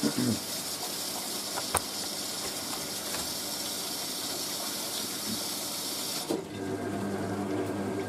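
Vintage Hoover A3060 Electronic 1100 washing machine taking in hot water through its fill valve: a steady hiss of inflowing water that cuts off suddenly about six seconds in, leaving a low hum.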